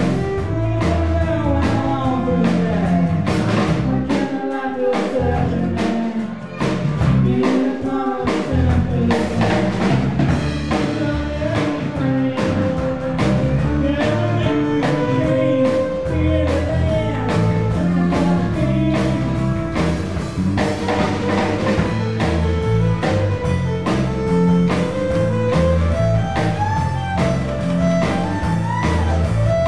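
Folk band playing live: violin carrying the melody over strummed acoustic guitar, drum kit and bass. The bass and drums drop out briefly about four and again about seven seconds in.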